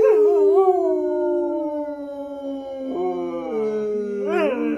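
A husky howling: one long howl that slides slowly down in pitch, joined about three seconds in by a second, lower howl, with a quick rise and fall in pitch near the end.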